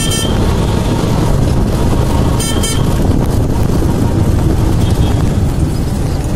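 Steady rumble of a vehicle's engine and road noise while riding along a road. A short horn beep sounds at the start, and two quick beeps come about two and a half seconds in.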